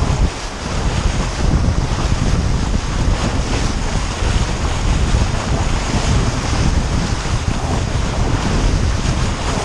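Wind buffeting the microphone over the steady rush and hiss of water along the hull of an RS400 sailing dinghy sailing fast downwind, with spray off the bow.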